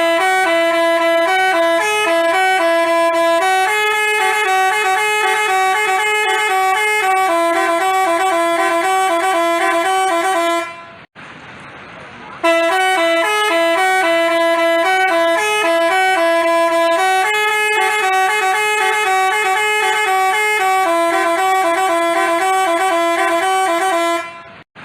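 Telolet basuri musical bus horn playing a tune of quick stepped horn notes for about eleven seconds. After a short pause it plays the same tune again.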